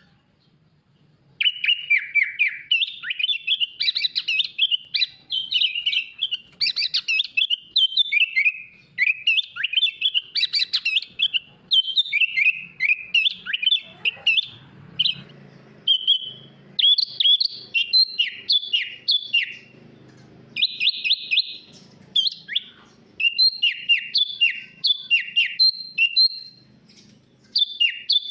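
Sooty-headed bulbul (kutilang) singing a fast, nearly unbroken run of short chattering and whistled phrases. It starts after about a second and a half of quiet.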